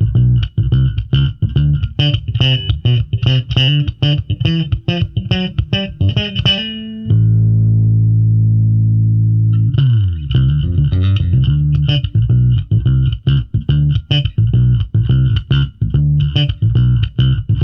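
Five-string electric bass with Delano pickups and Sonar3 preamp, played in fast runs of plucked notes. About seven seconds in it stops on one low note that rings for nearly three seconds, then slides down in pitch back into quick runs.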